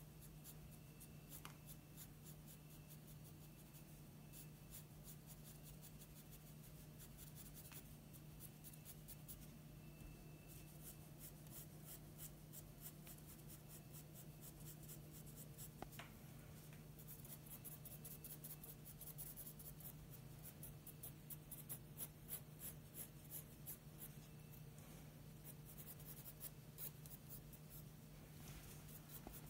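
Graphite pencil scratching on drawing paper in many short, quick strokes, faint, busiest in the second half. A steady low hum runs underneath.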